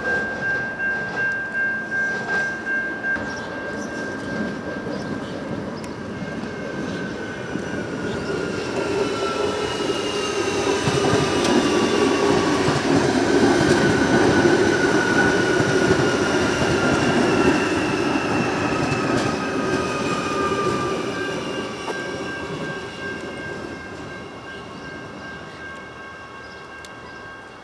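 Adelaide Metro 4000 class electric train passing close, its running rumble building to a peak mid-way and then fading, with an electric whine falling slowly in pitch as it slows. A high, pulsing ring sounds at the start and returns near the end.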